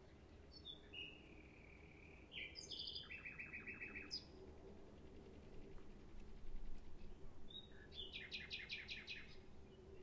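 Nightingale singing two phrases. Each opens with a few thin whistled notes and breaks into a fast trill of repeated notes. The first trill comes about three seconds in and the second near the end, with a faint steady hum underneath.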